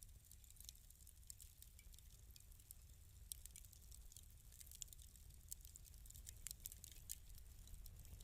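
Fireplace fire crackling quietly: scattered small pops and snaps over a low steady rumble.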